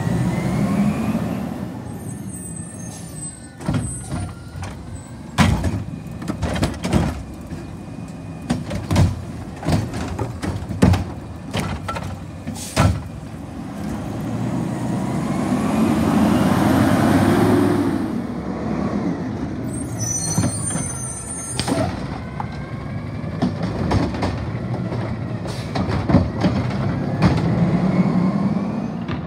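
Garbage truck with a Curotto-Can arm collecting a curbside cart. The diesel engine revs to drive the hydraulics, with rising and falling hydraulic whines. A run of sharp bangs through the first half comes from the cart being dumped, and a short air-brake hiss follows about two-thirds through.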